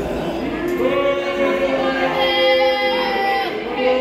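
High-pitched voices of spectators chanting in long, sung notes. Several pitches are held together, starting about half a second in; they break off near three and a half seconds, then another held note starts.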